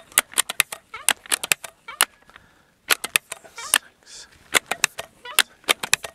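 Seneca Dragonfly MKII .22 multi-pump pneumatic air rifle being pumped by hand: its butterfly-linkage pump lever makes a rapid, irregular run of sharp clicks and clacks with each stroke, and there are a couple of short hisses of air near the middle.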